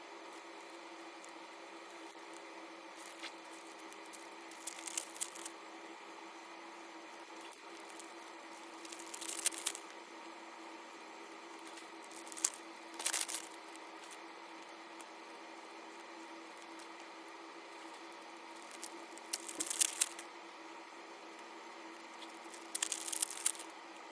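Oripa card packs being torn open and their cards handled, in short rustling, tearing bursts every few seconds over a steady low hum.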